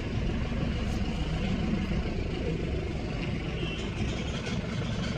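Car engine running with road noise, heard from inside the cabin as the car drives: a steady low drone.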